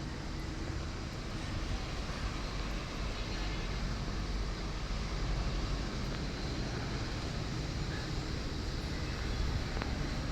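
Construction machinery engine running steadily, with a heavy low rumble and no clear changes.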